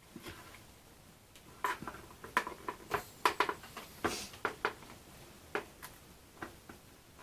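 Small hard objects being handled on a workbench: a string of irregular light clicks and taps, with a short rustle about four seconds in.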